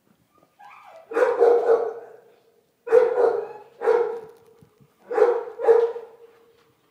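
A dog barking loudly, about six short barks grouped roughly in pairs, starting about a second in.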